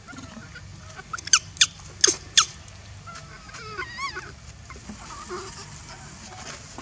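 Baby macaque crying: four short, sharp, high squeals in quick succession about a second in, then a wavering cry around four seconds.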